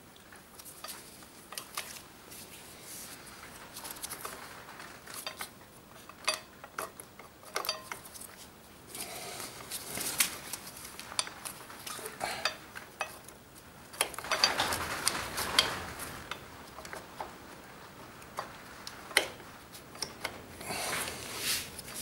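Small metal clicks, scrapes and rattles as the rear brake pads of a Suzuki DR650 disc brake caliper are worked loose by hand; the pads are stuck and don't just drop out. A longer stretch of scraping and rattling comes about two-thirds of the way through.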